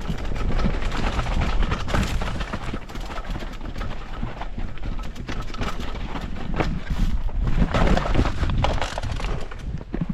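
Enduro motorcycle riding over rough, rocky ground: loud rumbling and buffeting on the camera microphone, broken by many sharp knocks and thumps.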